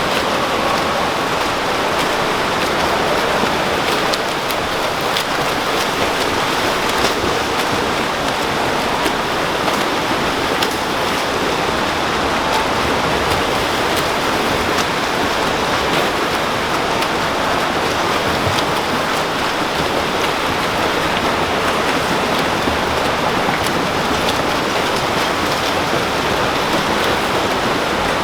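Steady, dense splashing of water from swimmers in a pool.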